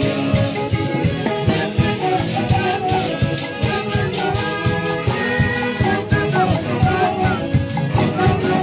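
Live band playing Latin dance music, with horns over a steady drum beat.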